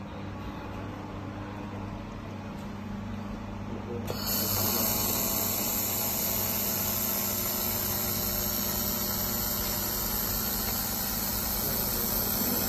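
Handheld laser welding machine humming steadily; about four seconds in, a loud, steady hiss starts abruptly and runs on as the welding gun fires.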